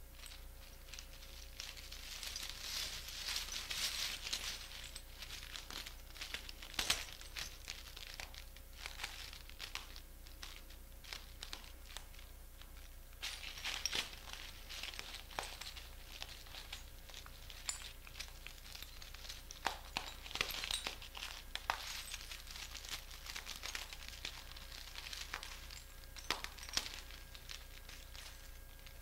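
Broken glass shards crunching and clinking under bare feet as a person steps and shifts weight on a pile of glass. The crackling comes in irregular spells several seconds apart, with sharp single clinks among them.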